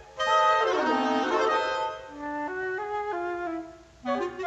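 Orchestral cartoon score carried by a woodwind: a quick run of notes down and back up, then a slower phrase of short stepping notes, with a brief pause near the end before the next phrase starts.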